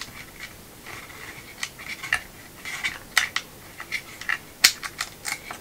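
Small plastic and metal parts of a DJI Robomaster S1 gimbal housing being handled and unscrewed: a scattered run of sharp clicks and clinks, with brief whirring that comes and goes.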